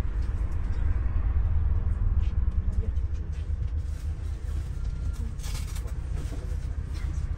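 Double-decker bus running, a steady low rumble with a humming note that stops about three seconds in, with light rattles and a short hiss about five and a half seconds in.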